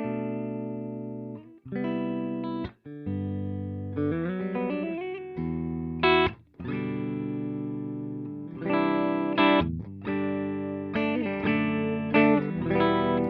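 Alvarez AAT33 semi-hollow electric guitar played through an AMT Pangaea CP100 preset built on a Blues Breaker amp sound with a Celestion speaker impulse response. Chords are struck and left to ring, with short breaks between them and a few bent notes about four seconds in and again near the end.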